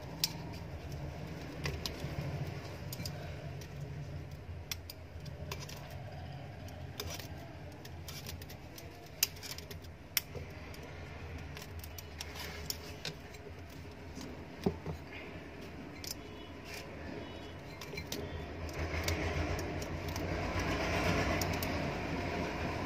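Enamelled copper winding wire rustling and clicking as its turns are pushed by hand into the slots of an electric motor's stator, with scattered sharp ticks. A low steady hum runs underneath, and a broader noise swells near the end.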